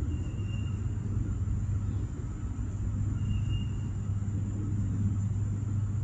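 Steady low rumble of a twin-engine jet airliner climbing high overhead, heard from the ground.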